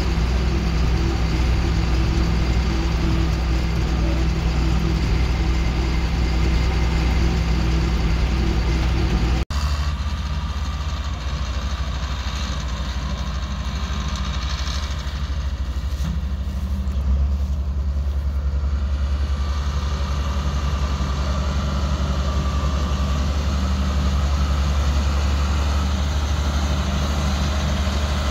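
John Deere 4855 tractor's six-cylinder diesel engine running steadily under way, heard at first from inside the cab. About nine seconds in it cuts abruptly to the same kind of engine drone heard from outside as the tractor pulls its grain cart.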